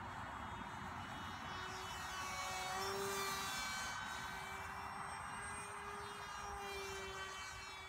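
Small RC model plane's motor and propeller whining as it flies overhead. The tone wavers a little in pitch and swells about three seconds in.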